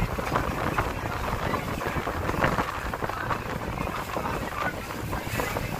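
Wind buffeting the microphone on the open deck of a moving tour boat, over a steady low rumble of the boat under way and water rushing along the hull.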